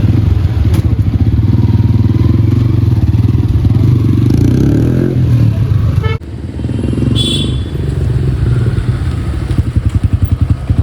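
Yamaha R15 V3's single-cylinder engine running steadily on a test ride, its drive chain freshly tightened. The sound drops out abruptly about six seconds in and then resumes, with a short high tone about a second later.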